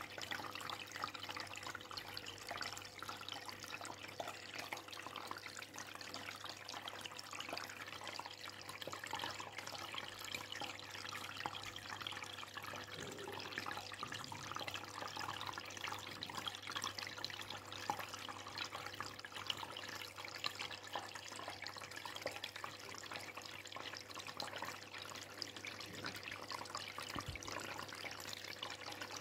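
Aquarium water trickling and bubbling steadily, as from the tank's filter or aeration, with a low steady hum underneath.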